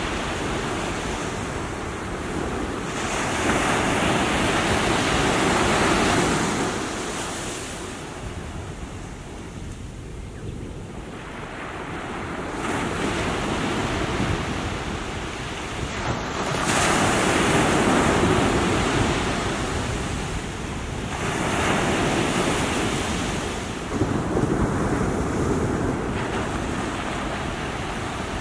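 Small sea waves breaking on the shore, a rush of surf that swells and fades every few seconds.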